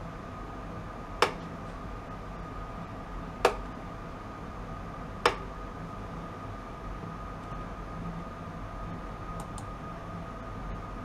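Steady hum with a thin high tone from a bench ultrasonic test setup, broken by three sharp clicks about two seconds apart, then two faint ticks near the end.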